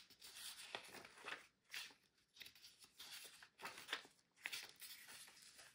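Faint rustling of the paper pages of a small album booklet as they are turned and handled: a string of short, soft swishes with a few light clicks.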